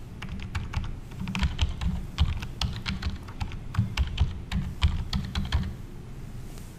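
Typing on a computer keyboard: a quick, uneven run of key presses that stops about a second before the end.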